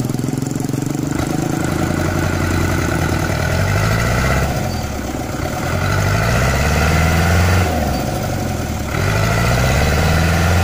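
Engine of a loaded cab-over light truck revving hard in three long surges, easing off in between, as it strains to pull itself out of soft mud.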